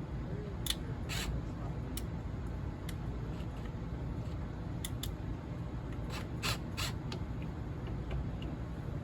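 Scattered sharp clicks and short scrapes of storm door latch hardware being handled and adjusted, about eight in all with a cluster near the middle, over a steady low rumble.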